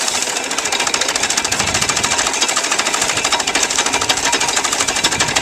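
Treadmill-driven corn chopper running at speed, its gearing and cutting knives making a fast, steady mechanical clatter as whole corn stalks are fed in and chopped.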